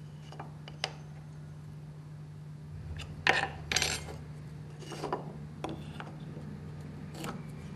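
A few light clicks and taps of a metal try square and pencil being set against small pieces of timber on a workbench, the sharpest about three seconds in, over a steady low hum.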